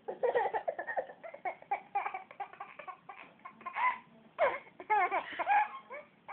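A young child laughing: a quick string of high-pitched giggles, rising to louder peals in the second half.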